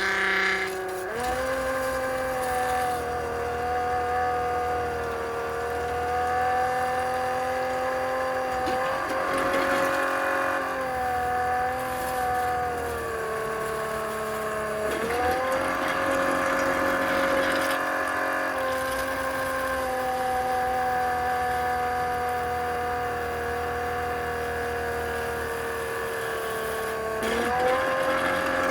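Small water pump motor running with a steady whine while pushing water through a condensate drain line; its pitch sags and recovers several times as the load changes. The pump had been seized and is freeing up, expected to speed up as water lubricates it.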